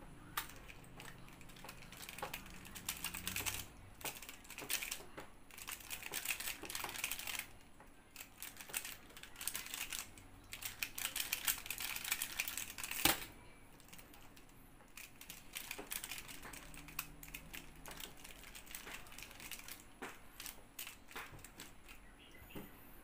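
Square-1 puzzle turned fast in a speed solve: dense runs of plastic clacks and scrapes from its layer turns and slices, ending about 13 seconds in with one sharp slap on the keyboard's spacebar that stops the timer. After that, sparser, quieter clicking as the puzzle is turned again.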